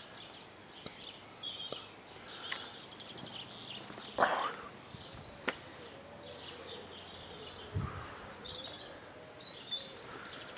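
Small birds chirping on and off, with a few sharp clicks and one brief, loud scuffing knock about four seconds in.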